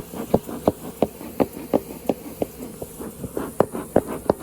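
Honey bees buzzing around an open hive box, agitated, over a quick, irregular series of short taps and knocks, roughly two to four a second.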